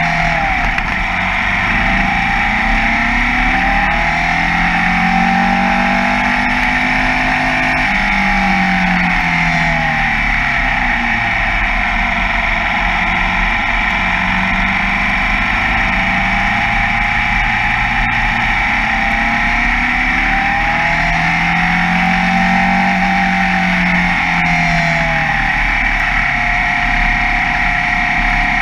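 Formula Vee racing car's air-cooled Volkswagen flat-four engine under hard running, heard onboard, its pitch rising and falling as the car accelerates and slows for corners.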